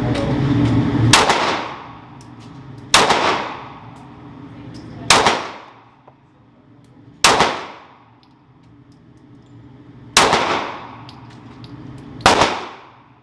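Six gunshots fired at a target, about two seconds apart, each followed by a long echoing ring-out in the enclosed indoor range.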